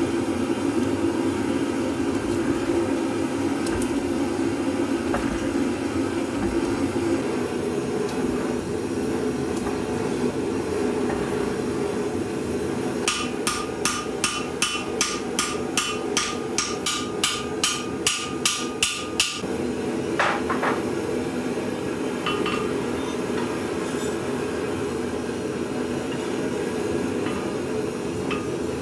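Hammer blows on a hot axe head on the anvil: a run of about a dozen quick, evenly spaced strikes, a little over two a second, each ringing, starting about halfway through, then a single knock shortly after. Under it the steady rush of a gas forge burner.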